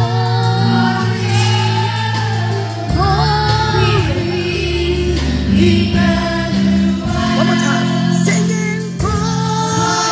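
Children's choir singing a Christmas gospel song over instrumental accompaniment, with held bass notes that change every few seconds.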